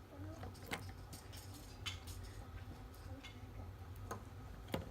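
Faint, irregular clicks and taps of plastic Lego bricks as a taped-together Lego fidget cube is flipped and folded into new shapes, a few clicks spread about a second apart.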